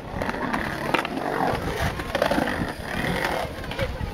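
Skateboard wheels rolling on concrete as a skater rides a bowl, with a couple of sharp clacks early on, over a background of people's voices.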